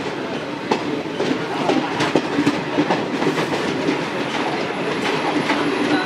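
Wheels of a moving passenger train's coach clattering over rail joints and points, a steady rumble with frequent irregular clicks and clacks, heard close up from the coach's open doorway as the train rolls into a station for its halt.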